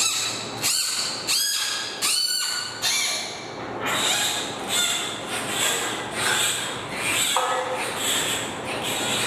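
Giant panda squealing over and over, short high-pitched calls coming about every half second to second, some with a bending pitch in the first few seconds.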